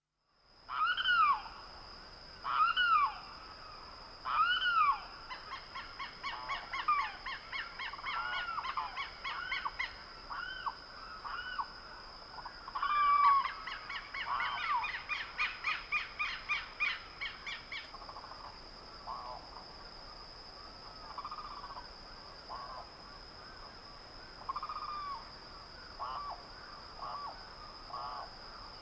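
Birds calling in the early morning: three loud arching calls in the first few seconds, then long runs of fast, rapidly repeated trilled notes mixed with scattered shorter calls. A steady thin high-pitched tone sounds underneath throughout.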